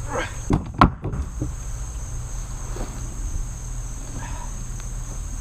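A steady, high-pitched chorus of insects. There are a few knocks about half a second to a second in, from handling the heavy split log halves.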